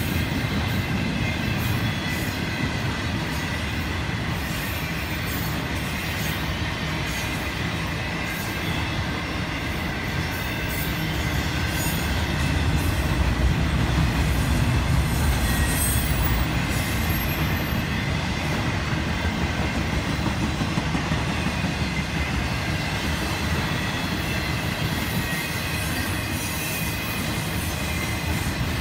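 Double-stack intermodal freight train rolling past: a steady rumble of steel wheels on rail, with thin, steady high squeals from the wheels. It grows a little louder about halfway through.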